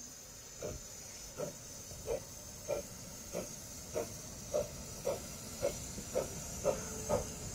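The 15-inch-gauge steam locomotive Green Goddess pulling away with its train: exhaust chuffs that quicken steadily as it gathers speed, over a steady hiss of steam.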